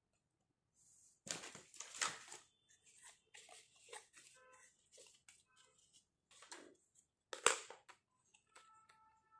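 Small hollow plastic toy furniture being handled and set down on a table: light clicks, knocks and rattles, the sharpest about 2 s and 7.5 s in. A faint short tone sounds near the end.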